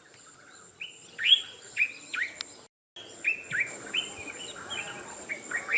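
Birds chirping: a run of short, quick sweeping chirps repeated every fraction of a second, with a steady high-pitched whine behind them. The sound cuts out completely for a moment about halfway through.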